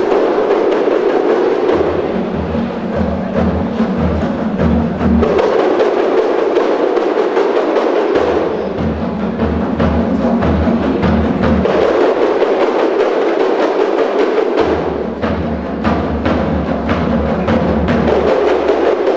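Percussion-led music: drums struck in a fast, steady rhythm with sharp hand strikes over a deep, thumping beat.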